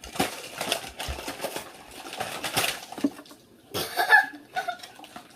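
Toy packaging being torn and crinkled: a run of quick rustling, ripping noises. A short pitched vocal sound comes about four seconds in.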